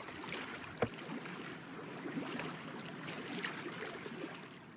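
Small waves lapping and trickling against a boat's hull, with one sharp knock a little under a second in.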